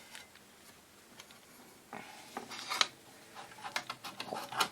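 Faint room tone, then from about two seconds in a run of small clicks, taps and rubbing as parts of the power supply are handled and refitted, with one sharper click near three seconds.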